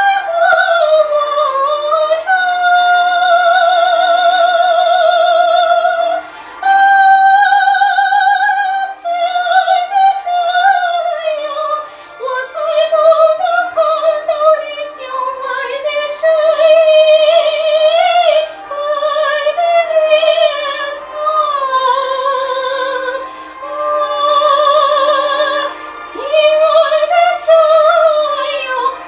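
A woman singing in a trained, operatic style with wide vibrato, holding long high notes and moving through a slow melodic line.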